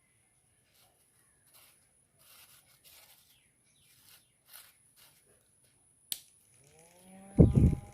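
Faint handling taps and rustles, then a sharp click about six seconds in, after which a homemade mini fan's small electric motor spins up with a rising whine and settles into a steady hum. A brief loud burst comes as it reaches speed, near the end.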